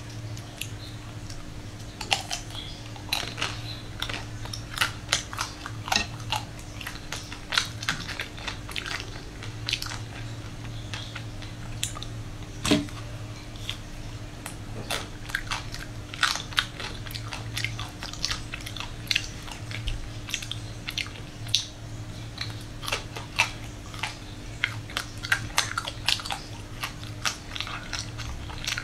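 Close-miked biting and chewing of a chocolate-coated ice cream bar on a stick: the thin chocolate shell cracks with many sharp crackles between softer chewing, over a low steady hum.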